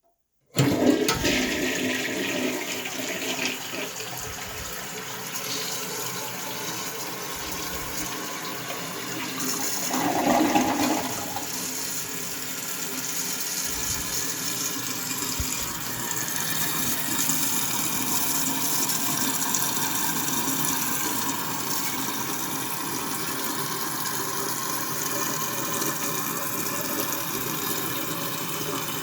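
A 1977 Kohler Highline toilet flushing. A sudden rush of water comes in about half a second in, with a brief louder surge around ten seconds. After that a long, steady run of water is heard as it refills.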